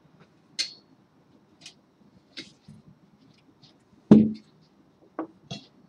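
Small metal parts of a 3D printer's frame kit being handled: a few sharp light clicks of screws and nuts at a frame corner, then one loud knock about four seconds in as a metal frame leg is moved on the frame.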